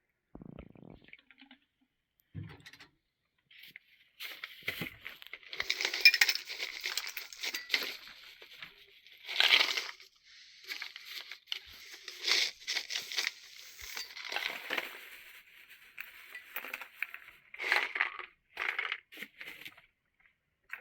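Irregular bursts of crinkling and clinking as objects are handled, each lasting a second or so, with short pauses between them.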